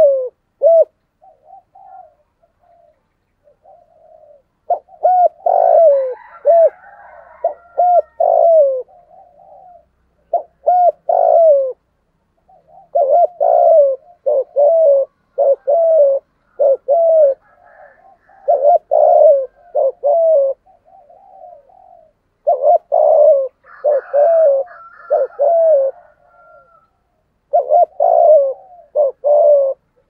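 A spotted dove cooing close up, repeating its low hooting phrase again and again in bouts of several notes with short pauses between them. This is the call that keepers play or use with a caged decoy bird to draw wild spotted doves in.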